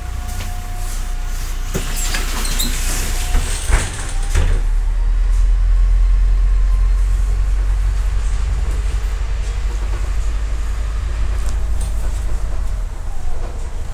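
MAZ-105 articulated city bus heard from inside the passenger cabin while it is driving: a steady low rumble of the engine and running gear. A run of knocks and rattles comes in the first few seconds, and the rumble grows stronger from about four and a half seconds in.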